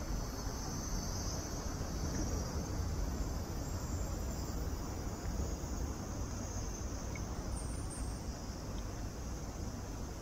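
Cicadas buzzing steadily as one continuous high drone, over a low steady rumble of outdoor background noise.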